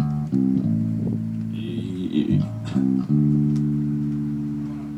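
Electric bass guitar through an amplifier being checked during a band's sound check: low single notes plucked and left to ring, a new note struck at the start, again just after, and once more about three seconds in.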